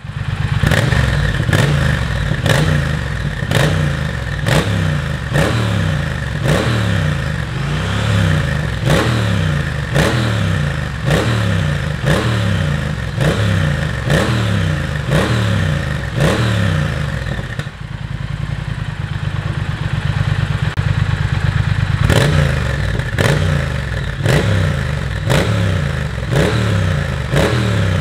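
Triumph Speed Twin's parallel-twin engine revved in quick, repeated throttle blips, roughly one and a half a second, through a de-catted Motone X-pipe Lite and the stock slip-on silencers. About two-thirds of the way in it settles to a steady idle for a few seconds, then the blipping starts again.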